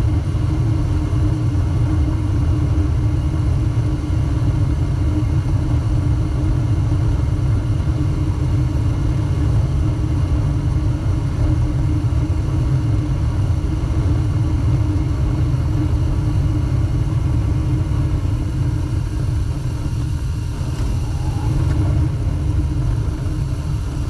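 Armstrong gas furnace firing, with its burners lit and the blower running: a loud, steady rumble.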